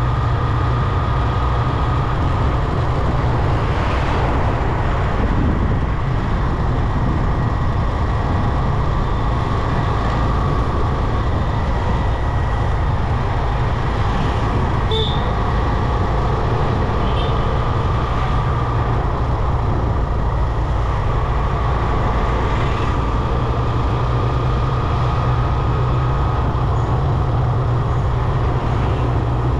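Motorcycle riding along a road at steady speed: a steady low rumble of engine and road noise with a faint steady whine.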